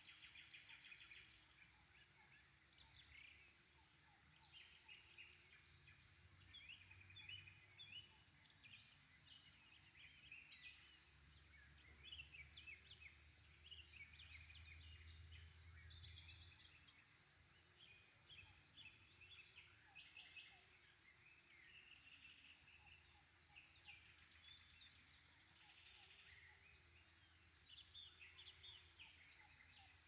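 Faint songbirds singing: many short chirps and trills from several birds, overlapping throughout.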